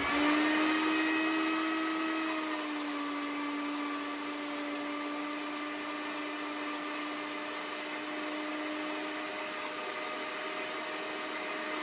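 Every Grow electric mill grinder running, grinding dry worm chow ingredients with a steady high motor whine over a gritty grinding hiss. The whine comes in sharply at the start and settles a little lower in pitch about two and a half seconds in.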